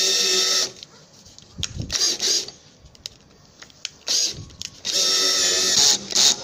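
Power drill-driver driving a screw into the edge of a composite panel. The motor whine stops under a second in, gives a few short bursts, then runs steadily again for about two seconds and ends in short spurts.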